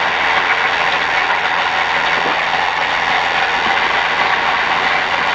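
Stock car's V8 engine idling: a steady, loud mechanical din. First gear is selected and the clutch is not yet let out.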